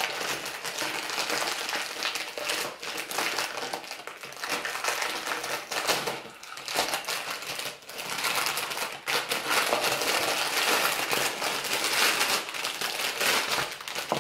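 Clear plastic bag crinkling and rustling as hands pull and tear it open around a plastic toy mask, with a short lull about seven seconds in.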